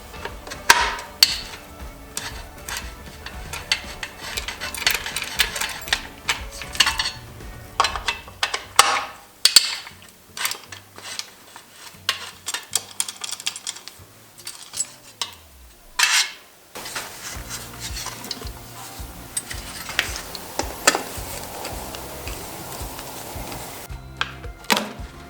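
Hand tools and metal parts clinking, scraping and knocking at irregular intervals as a dirt bike is taken apart, over background music.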